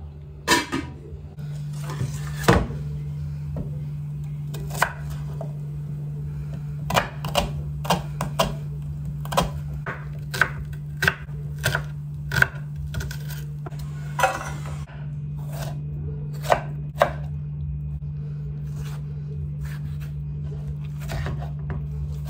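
Large kitchen knife chopping red onion and then tomatoes on a wooden cutting board: irregular sharp knocks of the blade hitting the board. Near the start a steel pot lid clanks onto its pot.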